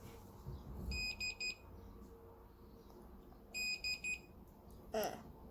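Fingerprint padlock beeping: two sets of three short high beeps, about two and a half seconds apart, as it reads a programmed fingerprint.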